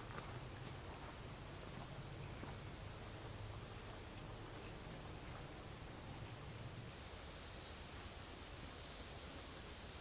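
Steady high-pitched insect chorus, such as crickets, droning without a break. It drops in level suddenly about seven seconds in.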